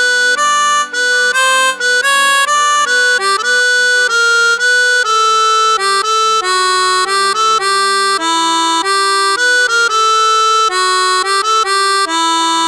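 Roland Fantom 06 synthesizer playing a lead melody in quick stepped notes over held lower chord notes.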